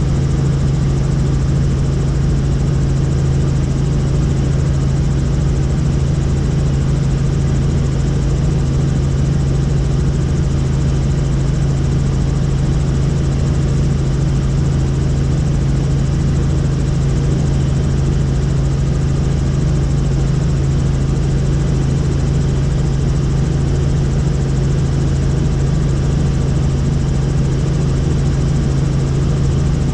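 Helicopter in steady flight: rotor and engine noise with a strong, unchanging low hum and no change in pitch or level.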